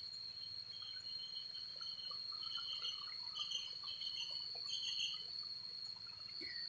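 Steady, high, thin insect drone, such as a cricket's continuous trill, with faint scattered chirps.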